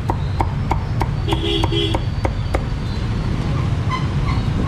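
Cleaver chopping crispy-skinned roast pork on a thick wooden chopping block: sharp, evenly spaced chops about three a second, stopping a little past halfway. A steady low rumble runs underneath.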